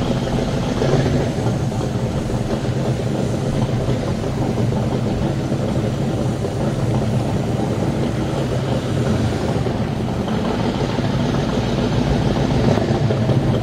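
Performance catamaran powerboat's engine idling at slow speed, a steady low rumble.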